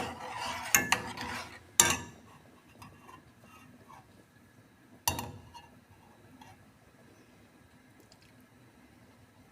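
A spoon stirring and scraping in a small saucepan of flaxseed and water, clinking against the pot for about two seconds. A sharp clink comes near the end of the stirring, and a single knock on the pot about five seconds in.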